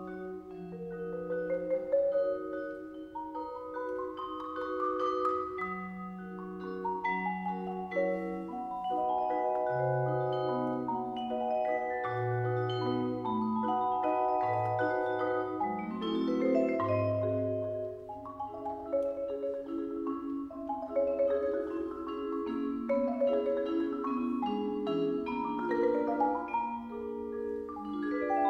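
Marimba and vibraphone playing together: quick mallet runs over long ringing vibraphone notes, with deep marimba bass notes underneath. Rising runs come in the first few seconds.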